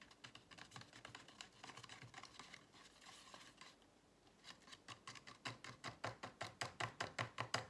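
A small spoon stirring a mixture in a plastic cup, faintly scraping and clicking against the cup's sides. Over the last few seconds the clicks grow louder and more regular, about five a second.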